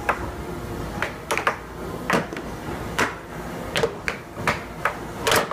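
Air hockey puck clacking against plastic mallets and the table rails during a fast rally: about ten sharp knocks at an irregular pace.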